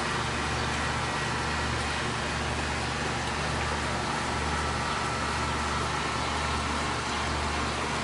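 Steady outdoor background noise: a low rumble under an even hiss, with no clear single event.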